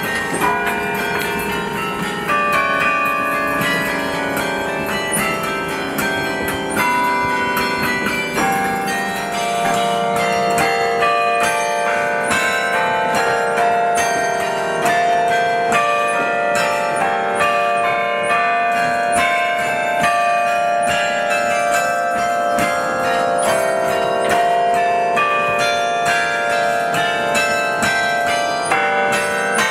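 Carillon bells of the Deeds Carillon playing a piece of music from the baton keyboard: a fast run of struck bell notes ringing on over held lower bells.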